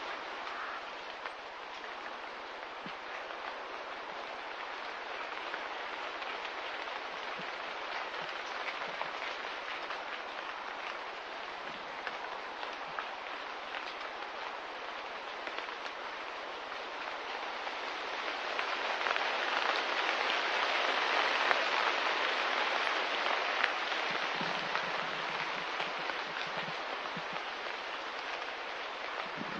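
Steady rain hissing with fine patter of drops, swelling louder about two-thirds of the way through and then easing back.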